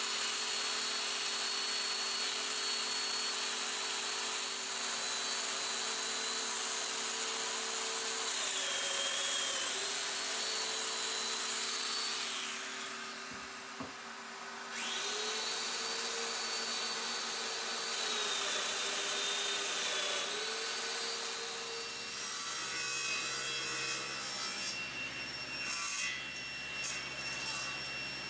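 Festool Domino joiner running with a vacuum on its dust port, a steady motor whine that sags in pitch as the cutter plunges into walnut. It stops briefly about halfway and starts again. A few knocks follow near the end.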